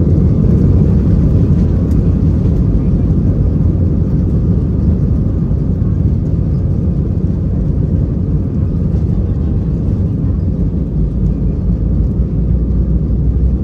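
Steady low cabin noise inside an Airbus A320-214 climbing shortly after takeoff: its CFM56 turbofan engines running and air rushing past the fuselage, even in level throughout.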